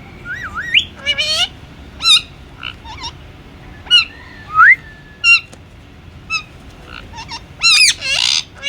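Indian ringneck parrot calling in a series of short, shrill calls in uneven bursts, with a rising whistle about half a second in and another near the middle; the loudest run of calls comes near the end.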